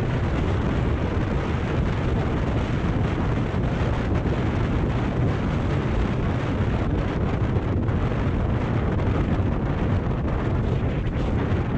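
Kawasaki Ninja 400 parallel-twin engine running steadily as the motorcycle rides along at road speed, with wind rushing over the microphone.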